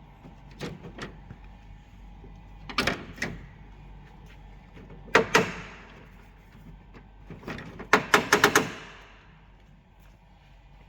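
Groups of sharp knocks and clatters, like a door or panel being handled: a few light ones, then louder pairs, and near the end a quick run of five or six.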